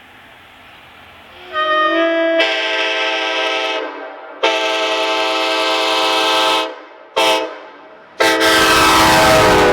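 A locomotive's multi-chime air horn blowing a chord in the grade-crossing pattern: long, long, short, long. The final long blast is joined by the loud rush of the train passing.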